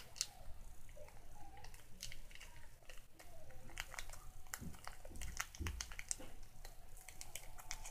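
Close handling noise of fingers squeezing and pulling at a small piece of white lightweight modelling clay: rapid small crinkles and clicks, busiest in the second half, with a couple of soft thumps about five seconds in.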